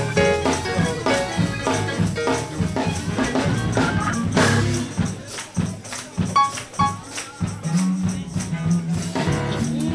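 Church praise music with a tambourine keeping a steady beat; a held low note comes in near the end.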